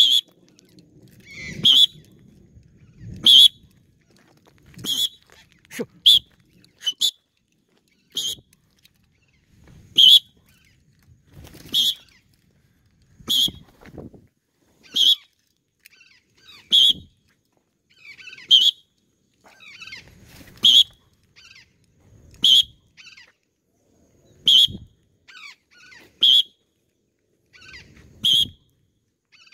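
Patagonian conures calling in flight: short, harsh, high screeches repeated about every one and a half to two seconds.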